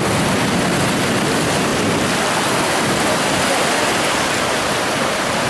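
Shallow surf washing in and out over sand, a steady loud rushing hiss of breaking foam.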